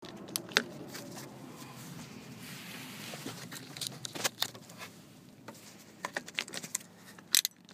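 Handling noise from a phone camera held in the hand with fingers rubbing over it: scattered taps, clicks and rustling, the sharpest clicks near the start and near the end.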